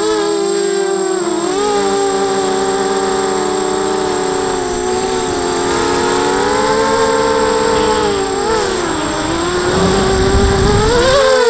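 ZMR 250 mini quadcopter's brushless motors and propellers whining in flight, close to the onboard camera, the pitch rising and falling as the throttle changes. A low noise builds near the end as it swoops low over the ground.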